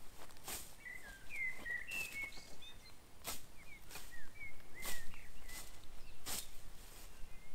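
Scythe blade swishing through grass in repeated strokes, roughly one a second. Bird chirps run alongside during the first half.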